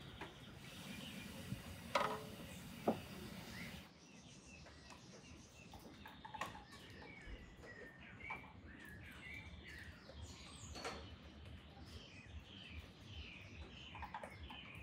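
Glass bottles clink twice as they are lifted out of a pot of steaming water, over a steady hiss. About four seconds in, the hiss stops and small birds chirp repeatedly.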